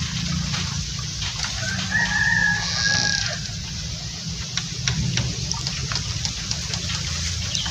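A rooster crowing once, a single held call starting about one and a half seconds in and lasting under two seconds, over a steady low rumble.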